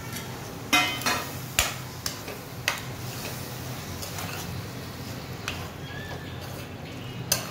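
A spoon stirring prawns into fried masala in a kadhai, knocking against the pan in several sharp metallic clinks, the loudest about a second in, over a steady low hum.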